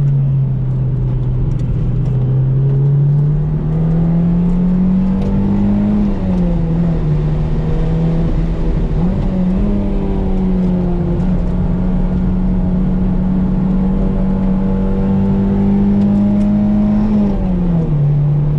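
Toyota MR2 engine pulling under load, heard from inside the cabin at speed on a track, with road and wind noise underneath. The engine note climbs through the first few seconds, dips twice, holds steady for a long stretch, then falls near the end.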